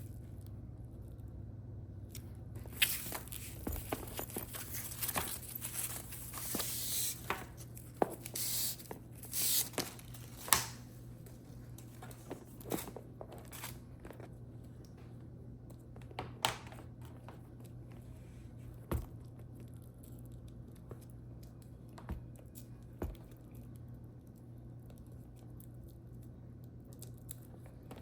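Packaging being handled and torn open: close-up bursts of rustling, crinkling and tearing for about eight seconds, then scattered light taps and clicks.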